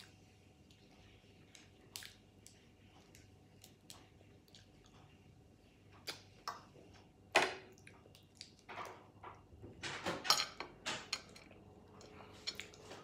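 Cooked crab being cracked and pulled apart by hand over a plate, with scattered sharp cracks, snaps and small clinks. The loudest crack comes about halfway through, and a quick run of crackling follows around ten seconds in.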